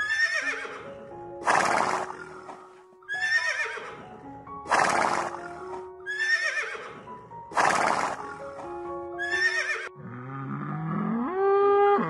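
A horse neighing again and again, one whinny about every second and a half, seven in all, over background music with steady held tones. Near the end a deep animal call comes in, rising in pitch, and it is the loudest moment.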